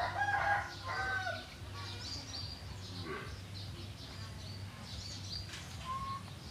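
Chickens clucking, loudest in the first second or so, with small birds chirping on and off over a steady low hum.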